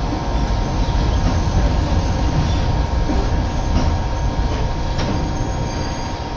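Hakone Tozan Railway electric train heard from inside the carriage as it pulls into a station: a steady rumble of wheels and running gear with a thin, steady wheel squeal. The noise eases a little near the end as the train slows.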